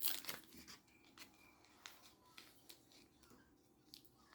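Trading cards and foil booster-pack wrappers being handled: a short rustle at the start, then faint scattered clicks and rustles.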